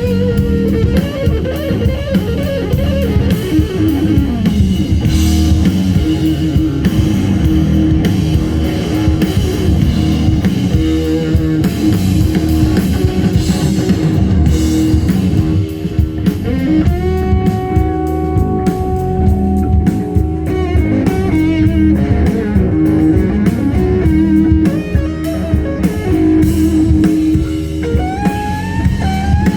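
Rock-blues band playing: an electric guitar plays lead over drum kit and bass. About halfway through, one guitar note is held for several seconds, and near the end the guitar slides up in pitch.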